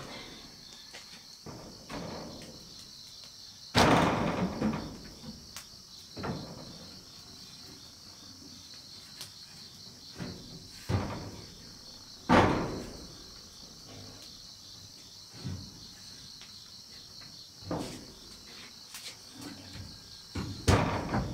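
Insects chirring steadily, with a few loud, irregular thuds and knocks from hands-on work, the loudest about four seconds in and again about twelve seconds in.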